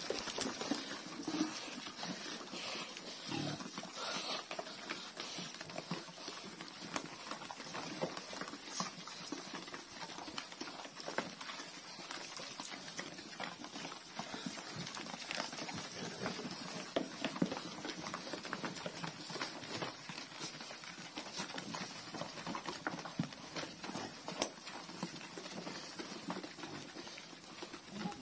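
A group of pigs feeding together at a trough, chomping and slurping a wet mash of feed and water in a steady, irregular crackle of small wet clicks.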